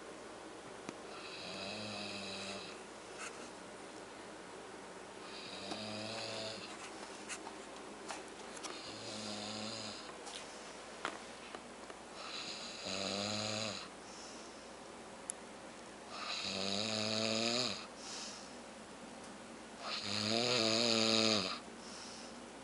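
A man snoring in his sleep: six rasping snores, one about every four seconds, each a low rumble with a breathy hiss. The later snores are louder.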